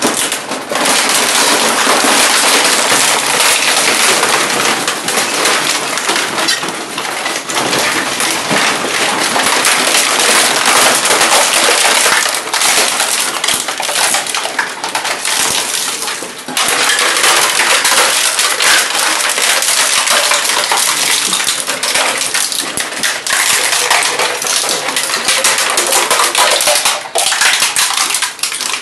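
Twin-shaft shredder crushing a PlayStation 4 console between its rotating cutter blades: a loud, dense crunching and crackling of the plastic and metal casing breaking up, easing off briefly twice.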